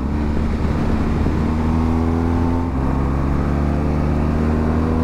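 BMW GS adventure motorcycle running at a steady cruise on the open road, heard from the rider's seat, with a small change in the engine note a little over halfway through.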